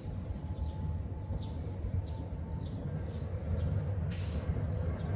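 Hakodate city tram with a steady low rumble. Short high falling chirps repeat about every 0.7 s, and a brief sharp hiss comes about four seconds in.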